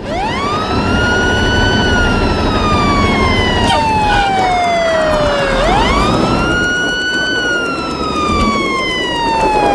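Fire truck siren wailing: the pitch climbs quickly, then slides slowly down over about five seconds, and starts over about halfway through, all over a low rumble.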